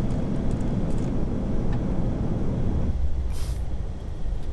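Steady rushing noise in an Airbus A380 cockpit during descent, airflow and engines running. About three seconds in the noise changes character, with a brief hiss.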